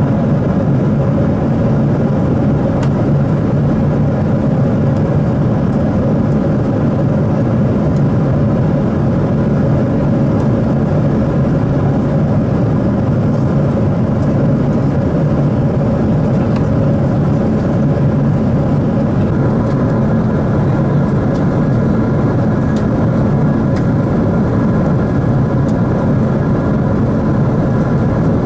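Steady jet airliner cabin noise at cruise: a constant rush of airflow and engine drone, with a few faint steady hums running through it.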